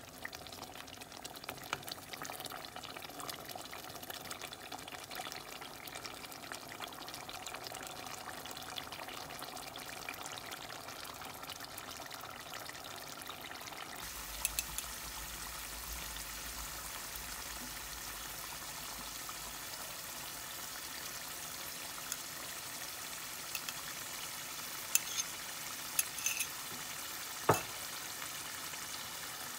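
Meat curry cooking in a pot: stirred with a wooden spoon in the first half, then a steady simmering bubble after an abrupt change about halfway through. A few sharp clicks near the end, the loudest a single knock.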